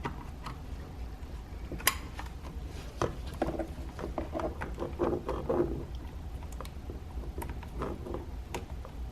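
Plastic clicks and rattles as the power window switch panel and its wiring connector are handled and plugged in, with one sharper click about two seconds in and some scraping and rubbing in the middle.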